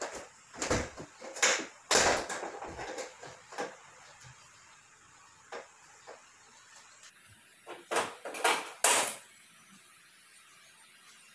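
Sharp knocks and taps as an aluminum tubular frame post is handled and fitted: a quick run of knocks in the first few seconds, a lone tap in the middle, and three louder knocks about eight to nine seconds in.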